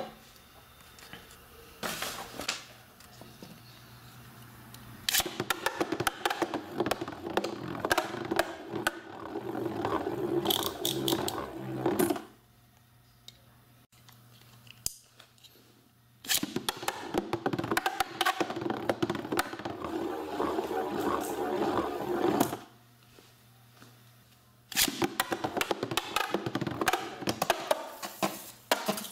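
A Beyblade spinning top launched into a plastic stadium, whirring and clattering as it spins; three separate spins, each of several seconds and each stopping suddenly.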